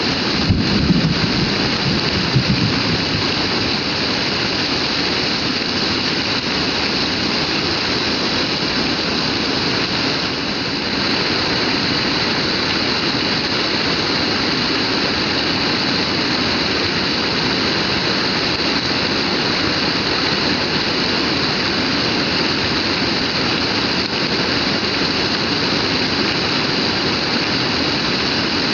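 Heavy rain pouring down in a steady, dense hiss, with a couple of brief low thumps in the first few seconds.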